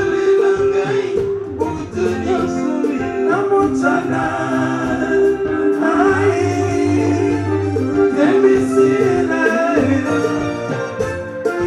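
Live soukous band music: held chords with a steady beat of light cymbal ticks, and singing over it.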